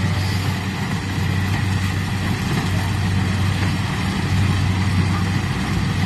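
Corn harvester's engine running steadily under load while it works through dry corn stalks: a constant low engine hum over a steady mechanical hiss.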